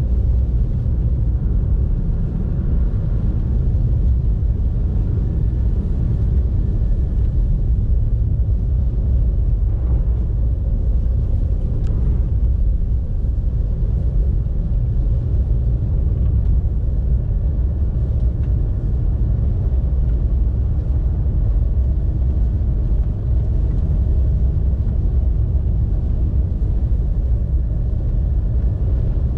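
Steady low rumble of a car driving, its engine and tyre noise running evenly on a snowy road.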